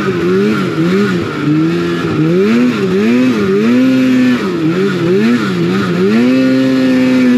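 Polaris RMK 800 two-stroke snowmobile engine revving up and down repeatedly under throttle, then holding steady at high revs near the end. It pulls cleanly without its old wide-open-throttle fault, which was cured by replacing a mismatched stator, flywheel and CDI.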